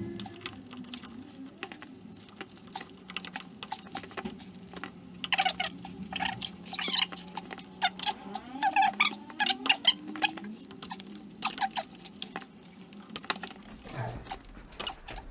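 Irregular small clicks, scrapes and rubbing of thick insulated gloves and a screwdriver working the plastic tag and sleeve of a high-voltage traction battery connector to release it, over a faint steady low hum.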